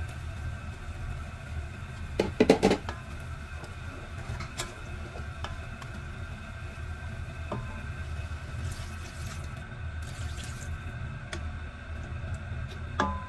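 Diced carrots and potatoes tipped into a stainless steel pot of water and chicken, a short burst of knocks and splashes about two seconds in. Then a wooden spatula stirs now and then while the pot heats toward a boil, with a few light taps over a steady low hum.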